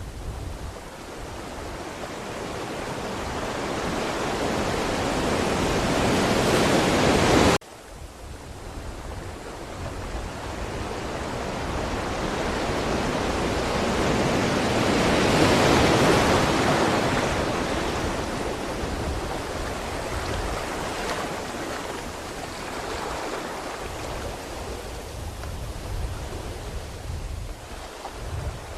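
Ocean surf: a wave's rush swells to a crest and is cut off abruptly about a quarter of the way in, then another wave builds to a peak around the middle and slowly washes back out.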